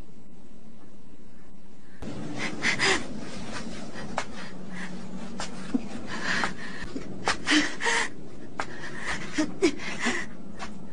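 Labored panting and short strained gasps, voiced for a badly hurt character struggling to her feet. The breaths start about two seconds in and come irregularly over a steady low hiss.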